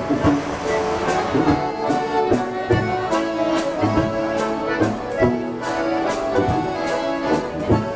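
Button concertina, Chemnitzer-style, playing a lively tune of sustained reedy chords and melody. A steady beat runs under it at about two strokes a second.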